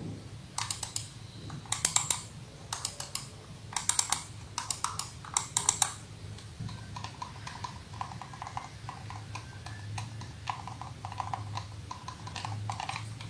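Computer mouse buttons clicked over and over in a sound test of newly fitted Kailh silent switches: sharp, loud clicks in quick runs for the first six seconds or so, then softer, duller clicks.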